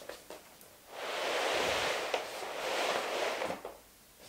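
Large rolled-up wool carpet being pushed and unrolled along the floor: a long swishing rush of about two and a half seconds, with a sharp tick partway through.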